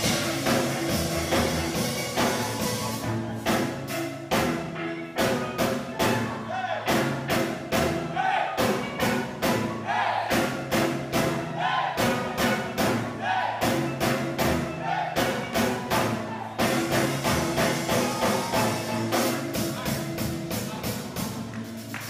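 Live steel drum band music: steel pans playing over a drum kit that keeps a steady, driving beat.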